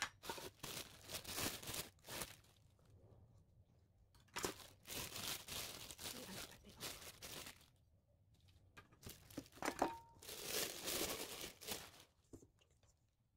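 Thin clear plastic bag crinkling and rustling as it is pulled off a stainless steel mixing bowl, in three spells, with a sharp knock about ten seconds in.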